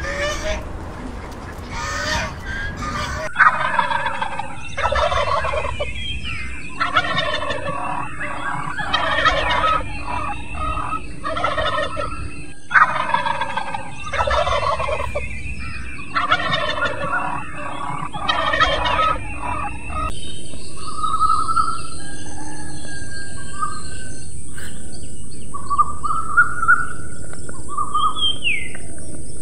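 Domestic tom turkeys gobbling over and over, about one gobble a second. Near the end the gobbling gives way to short whistled songbird calls over a steady high hiss.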